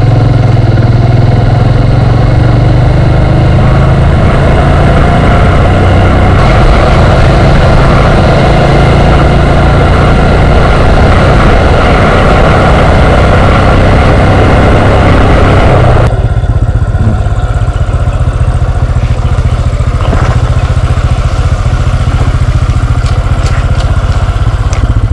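Motorcycle engine running on the move, with heavy wind rushing over the microphone. About two-thirds of the way through, the hiss above the engine drops away suddenly, and the low engine and wind rumble goes on.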